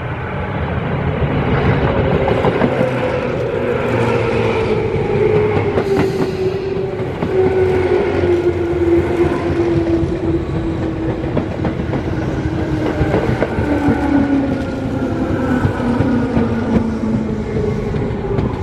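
Tobu 10000-series electric multiple unit train running past at close range, with a loud rumble of wheels on rail and repeated clicks and clacks from the track joints. A motor whine falls steadily in pitch as the cars go by.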